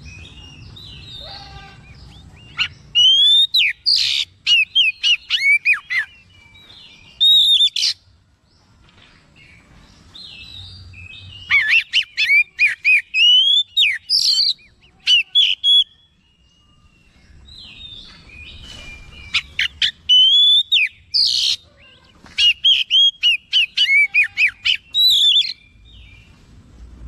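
Oriental magpie-robin singing loudly in three long bursts of rapid, varied whistles and sweeping notes, with pauses of a few seconds between.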